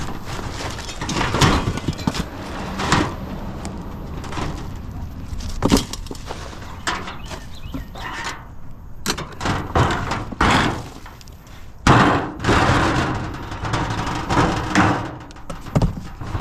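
Junk being handled and tossed about: repeated clattering, knocks and scraping, with several loud bangs scattered through.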